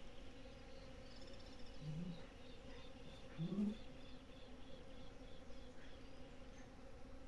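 Steady hum of many bees foraging on a flowering mutamba tree, with two short, louder rising buzzes about two and three and a half seconds in. Faint high chirps sound above the hum.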